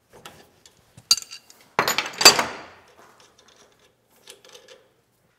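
Steel adjustable wrench clinking and clanking against hex nuts on a steel threaded rod held in a bench vise. There are a few light clicks, then a loud run of ringing metal clanks about two seconds in, and faint clicking near the end.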